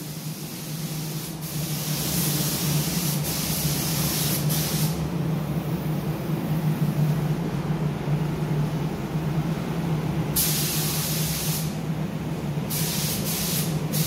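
Pneumatic paint spray gun hissing as it applies soft-touch coating to plastic car interior trim. It sprays in passes: one long pass of about five seconds, a pause, then two shorter bursts near the end. A steady low hum runs underneath.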